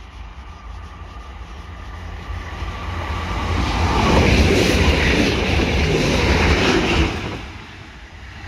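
A Class 175 diesel multiple unit approaches and passes close by, its engines and wheels on the rails growing louder. It is loudest from about three and a half to seven seconds in, then falls away suddenly once it has passed.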